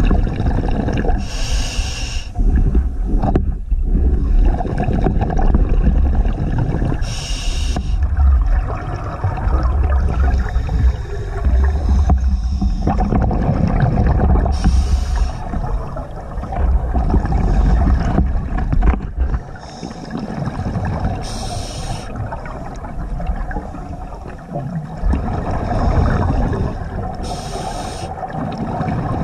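Scuba diver breathing through a regulator underwater: a short hissing inhale about every six to seven seconds, five in all, with low bubbling rumble between them.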